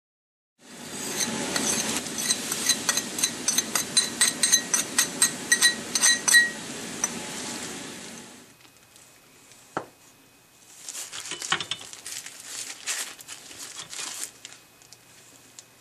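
A metal spoon stirring in a pot of hot water, clinking against the pot about four times a second over a steady hiss, as baking soda is stirred in. Then, much quieter, a kitchen knife cutting a block of firm tofu on a plastic cutting board, with one sharp knock of the blade and soft scrapes and taps.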